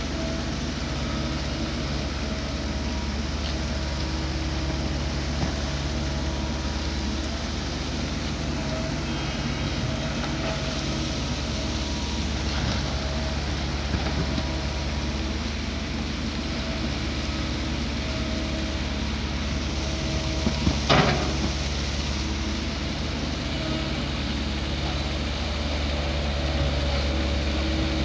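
Diesel engine of a SANY hydraulic excavator running steadily as it digs along the ditch. One sharp knock about three-quarters of the way through.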